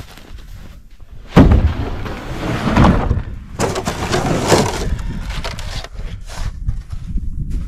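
Wood being handled: a sudden loud knock about a second and a half in, then a run of irregular knocks and crunching, typical of cut firewood rounds being thrown and knocking together.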